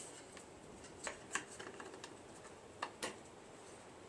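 A few faint, short clicks and taps, about four of them spread over the few seconds, like small parts being handled.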